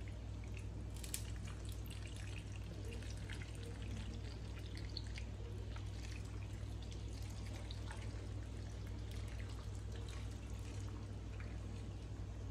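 Thick, chunky seafood-boil sauce pouring and dripping from a stainless steel bowl onto lobster tails and corn in a pot, with many small wet splats and clicks scattered throughout.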